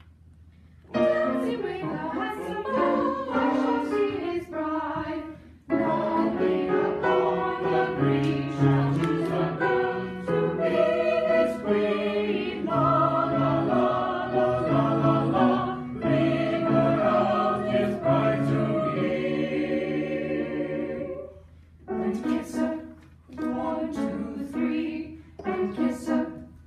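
Mixed choir of sopranos, altos, tenors and basses singing the changing-meter section of a piece, starting about a second in. It runs in long phrases through the middle, breaks off briefly, then goes on in shorter, broken phrases near the end.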